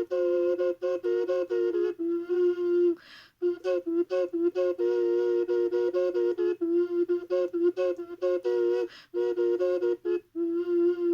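3D-printed Huaca ocarina in F4 minor pentatonic playing two notes at once: a low note near F held underneath while a higher line steps between notes above it. The playing breaks off in a few short gaps, about three seconds in and again near the end.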